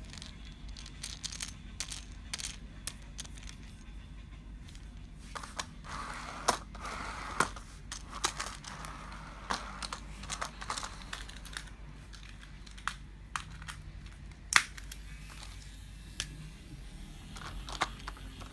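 Scattered clicks, taps and rubbing from a wooden toy train engine with metal axles being handled in the fingers, set down and pushed by hand along a tabletop, with one louder click past the middle.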